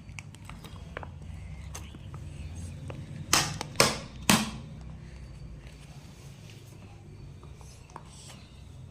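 Handling noises: scattered small clicks, then three short, loud bursts of noise about half a second apart a little over three seconds in, over a low steady hum.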